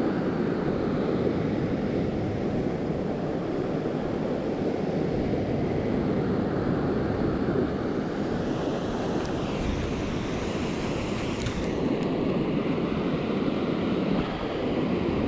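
Steady rush of river water tumbling over a rocky rapid close to the microphone.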